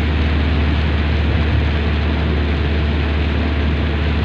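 Steady noise of a car driving on a rain-soaked highway, heard from inside the vehicle: a low drone of engine and tyres under an even hiss of rain and water spray.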